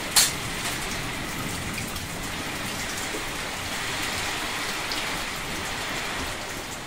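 Steady rain falling, an even hiss of drops. One sharp tap stands out about a quarter second in.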